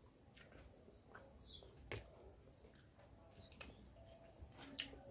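Near silence with a few faint, sharp clicks of a metal fork against a plastic bowl, and a bird's short chirp about a second and a half in.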